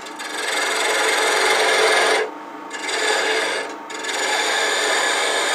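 A lathe gouge cutting a spinning wooden handle blank, a steady hissing, shaving noise. It breaks off twice, for about half a second just after two seconds in and again briefly near four seconds, as the tool lifts off the wood.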